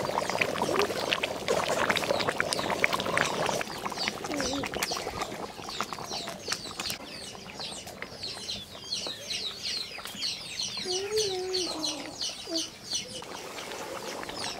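Small birds chirping in quick, high, repeated calls, with a hen clucking about eleven seconds in. Over the first few seconds there are clicks and scraping from cooking in a pot.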